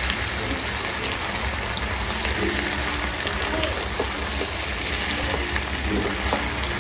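Chicken pasta sizzling in a hot pan as a wooden spatula stirs it: a steady, rain-like hiss with a few faint small ticks.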